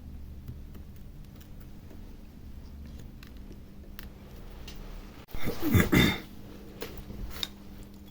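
Faint clicks and taps of small broken pieces of a tablet's touch-screen glass being picked off and handled, with one louder scraping rasp a little after five seconds in, over a steady low hum.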